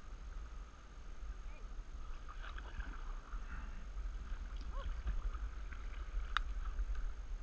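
Canoe paddle strokes dipping and pulling through calm water, over a steady low rumble. A single sharp knock comes a little past six seconds in, and short high chirps come and go.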